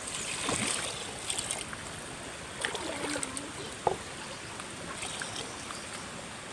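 A shallow rocky stream flowing steadily, while water is poured from a plastic cup into a metal pot of rice during the first second or so. A light knock comes about four seconds in.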